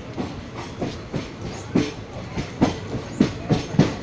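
Passenger train's wheels clacking over rail joints as it runs along the platform, heard from aboard the coach over a steady rumble; the knocks come faster and louder toward the end.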